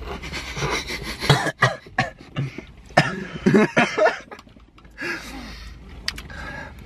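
Two people coughing and laughing in short, sudden bursts after swigging juice straight from the carton.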